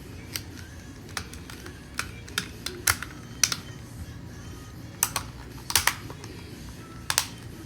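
About a dozen sharp, irregular clicks and taps of small hard plastic parts from a disassembled PS5 controller being handled, with faint background music underneath.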